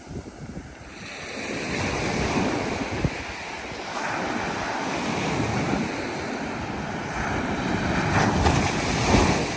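Sea surf: waves breaking and washing up the beach, a rushing that builds about a second in and swells loudest near the end.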